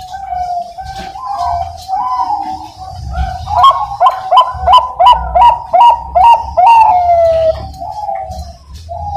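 Bangkok-type zebra dove (perkutut) singing its cooing song. A few low coos build into a run of about eight quick, loud staccato notes, then a note falling in pitch.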